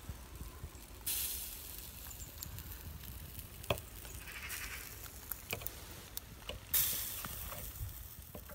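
Fish grilling on sticks over charcoal embers: a steady sizzling hiss with scattered crackles and clicks. The hiss comes in suddenly about a second in and again near the end.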